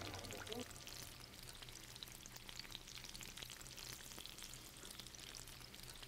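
Faint, steady sizzle and crackle of jeon frying in oil in a pan on a portable gas burner.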